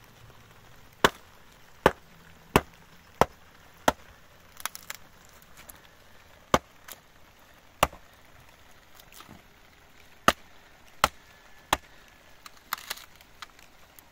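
Small hammer striking a long split wooden pole: five sharp blows in quick succession, a pause, then more single blows a second or so apart, with a cluster of lighter knocks near the end.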